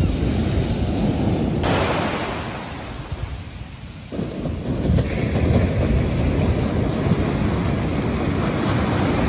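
Heavy shore-break surf from a hurricane swell crashing and washing up the beach, with wind rumbling on the microphone. The sound sags for a moment around three to four seconds in, then comes back abruptly at full strength.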